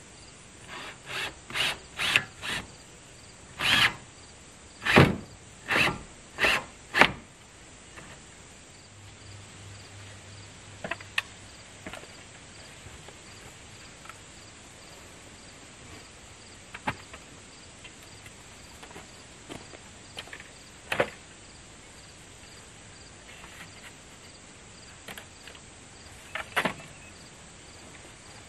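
About eleven hammer blows on wood in the first seven seconds, irregularly spaced and growing heavier, then a few scattered lighter knocks. A steady chorus of insects, likely crickets, runs underneath.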